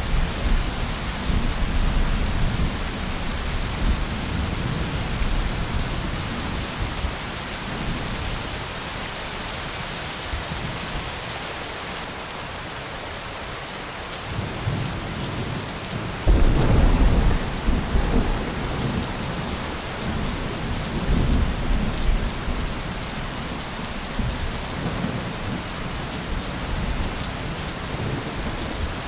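Thunderstorm: steady rain with rolling thunder. A rumble fades away over the first several seconds, then a little past halfway a sudden, louder thunderclap rumbles on for several seconds and dies away.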